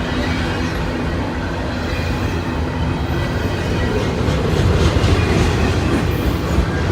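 Freight train rolling past: a steady rumble of wheels on rail with clacking over the rail joints, getting a little louder about four seconds in.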